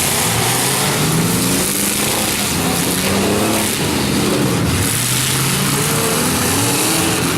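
Several demolition derby cars' engines revving at once, their pitches rising and falling over each other.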